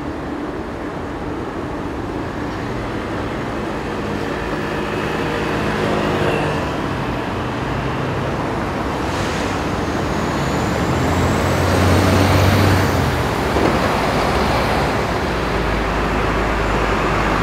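Road traffic: engines of passing motor vehicles rumbling by over a steady city background noise, growing louder and peaking about twelve seconds in, with a deep low rumble continuing toward the end.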